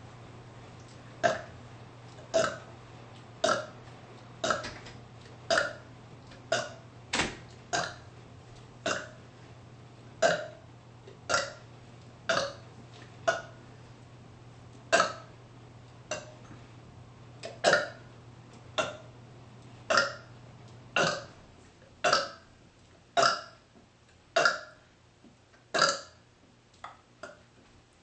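A woman burping over and over, about two dozen short burps at roughly one a second, each one loud and abrupt, with a few closer together near the end. The burps are gas brought up from the carbonated soda she has drunk.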